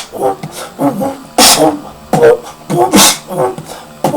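Human beatboxing: a rhythmic vocal pattern of pitched, bending bass tones broken by sharp hissing snare-like hits about every second and a half.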